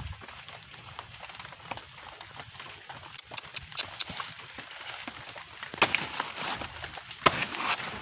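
Fallen banana leaves and stalks brushing and rustling as they are pushed aside by hand, with scattered light clicks and two sharp knocks, the louder ones about six and seven seconds in.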